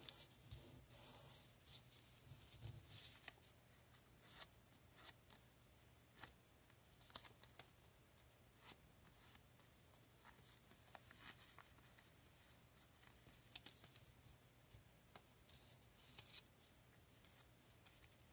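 Faint crinkles and soft taps of a 10-euro banknote being folded and creased by hand, coming as scattered short crackles over a low steady hum.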